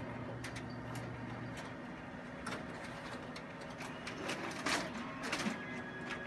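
Office copier running a copy from its document feeder: a steady motor hum that stops about a second and a half in, then scattered mechanical clicks and knocks as the machine and the paper are handled.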